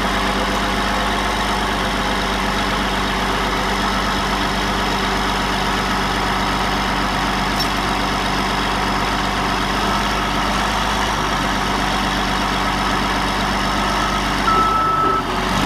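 Caterpillar D8T bulldozer's diesel engine running steadily while the dozer holds its blade against the concrete ramp slab. Near the end the dozer's reversing alarm starts beeping.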